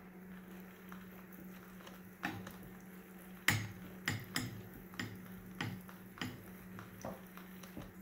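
Irregular sharp clicks and light knocks from an Abu Garcia 6500 Pro Rocket baitcasting reel being handled, starting about two seconds in with the loudest about halfway through, over a steady low hum.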